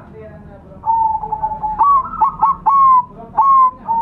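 Zebra dove (perkutut) cooing: a held note about a second in, then a quick run of short clipped coos and two longer drawn-out coos that close the phrase.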